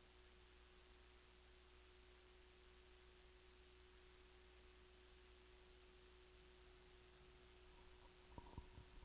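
Near silence: room tone with a faint steady hum, and a couple of soft clicks near the end.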